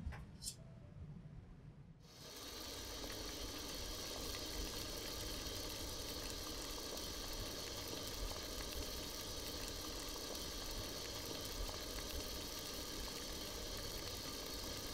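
Water boiling in a stainless steel steamer pot: a steady, even noise of bubbling and steam that sets in about two seconds in. Two sharp clicks at the start as the pot's glass lid is handled.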